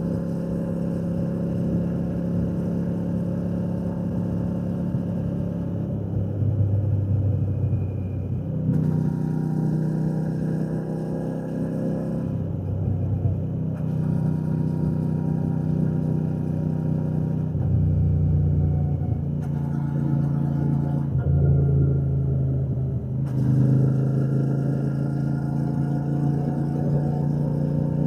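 Royal Enfield Shotgun 650's parallel-twin engine and exhaust on the move, its pitch falling and rising several times as the throttle is rolled off and opened again, with wind rushing past the rider.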